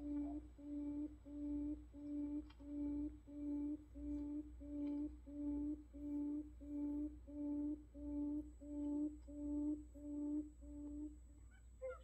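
Recorded decoy call of a buttonquail (นกคุ่ม): a long series of low, even hooting notes, about two a second, that stops about eleven seconds in.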